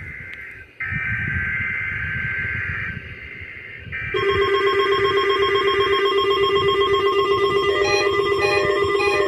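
NOAA Weather Radio SAME header bursts, a buzzy two-tone digital chirp repeated with short gaps, then from about four seconds in a steady alert tone. Several weather radios set off their own pulsing alarm beeps on top of it for the Required Weekly Test.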